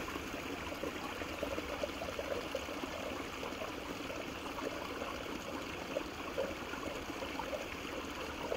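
Creek water trickling and babbling steadily.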